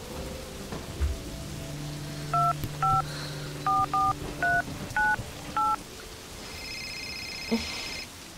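Phone keypad touch tones: seven short two-tone DTMF beeps over about three seconds as a number is dialed, followed near the end by a high trilling ring tone, under a low sustained music drone.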